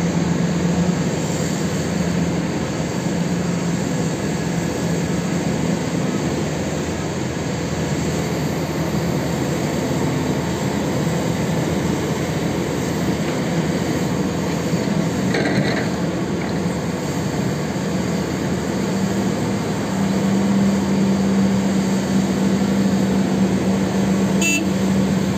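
Big diesel engines of a Hitachi EX2500 mining excavator and a Komatsu HD785 haul truck running steadily during loading. The engine hum rises in pitch and gets a little louder about twenty seconds in, and there is a brief higher sound midway.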